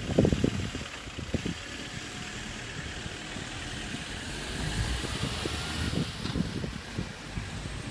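Road traffic: a car and then a van drive past close by as the level crossing reopens, engine and tyre noise swelling as each passes. Wind rumbles on the microphone at the start.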